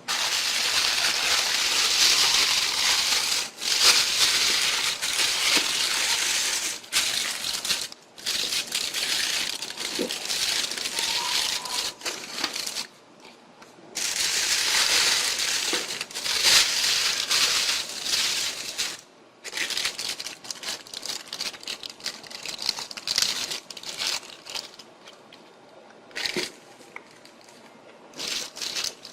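Packaging crinkling and rustling as it is handled: two long stretches of dense crinkling, then scattered crackles and rustles in the last third.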